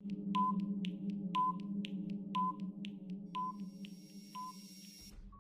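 Quiz countdown timer sound effect: a steady low hum under five short pings, one about every second, with soft ticks between them. It fades out over about five seconds, marking the thinking time before the answer.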